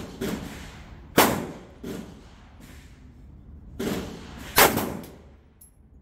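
9mm pistol shots: two loud reports, about a second in and about four and a half seconds in, each with a short echoing tail, with fainter sharp cracks at the start and in between.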